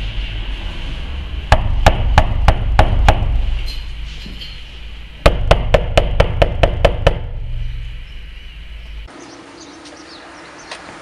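Two quick runs of sharp knocking impacts, about three or four a second, six blows and then eight, over a heavy low rumble that cuts off suddenly near the end.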